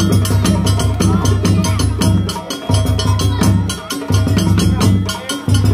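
Fast drum-and-percussion music: a quick, even stream of sharp strikes with a woody, clacking edge over a deep bass that drops out briefly about every second and a half.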